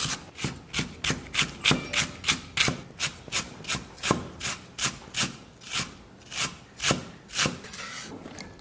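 Cleaver mincing fresh ginger on a wooden chopping board: steady, sharp knocks of the blade on the wood, about three a second, slowing a little and then stopping shortly before the end.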